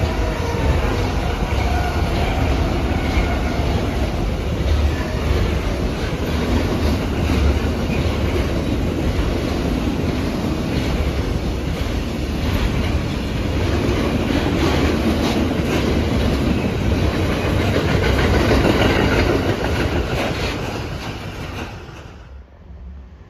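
Long container freight train passing close by: a steady rumble of wagon wheels on the rails with a rhythmic clickety-clack over the rail joints. The sound drops away abruptly near the end.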